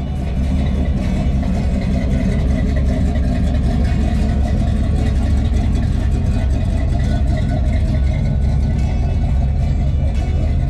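A 1963 Chevrolet Bel Air's 409 big-block V8, freshly rebuilt and fitted with a Holley carburettor, running at a steady idle.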